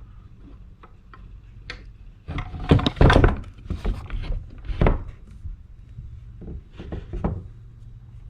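Irregular knocks, clicks and rubbing from handling a wall clock and fitting the battery into its quartz movement, with a burst of louder knocks about three seconds in and a single thunk near five seconds, over a low steady hum.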